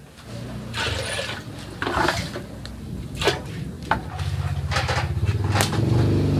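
Metal pot lid clinking and knocking as it is lifted and set back on an aluminium cooking pot over a wood fire, several sharp knocks a second or so apart. Under it runs a low droning hum that grows louder in the second half.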